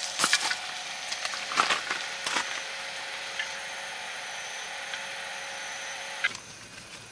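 A few sharp clicks and knocks of cooking utensils and a wooden bowl being handled, over a steady hiss and faint hum. The hiss drops away after a click about six seconds in.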